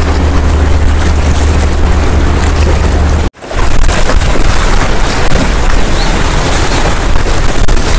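Loud wind buffeting the microphone, a heavy low rumble under rushing noise, broken by a brief dropout about three seconds in.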